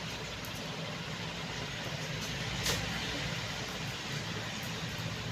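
Steady low background rumble and hum, with one sharp click a little past the middle.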